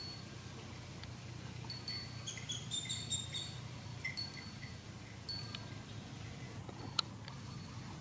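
Short, high-pitched chirps in small groups, some stepping up and down in pitch, over a steady low rumble of outdoor background noise; a single sharp click about seven seconds in.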